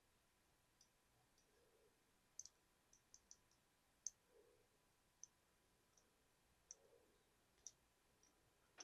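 Faint, irregular light clicks and ticks, about a dozen spread over several seconds, the sharpest about four seconds in, over quiet room tone.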